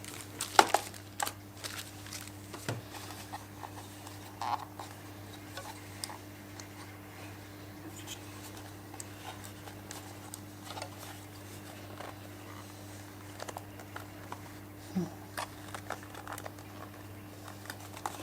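Robot vacuum packaging being handled and unwrapped: plastic wrap crinkling, cardboard and parts tapping and knocking, in irregular bursts with the loudest cluster about a second in. A steady low hum runs underneath.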